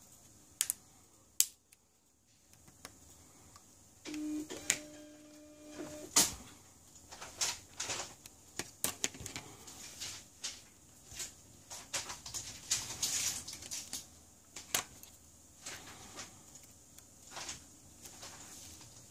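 Scattered small clicks and taps of metal tweezers and a precision screwdriver on the screws and metal shield plate of a Huawei P20 lite smartphone's mainboard, as the screws are undone and picked out. About four seconds in, a brief steady hum sounds for about two seconds.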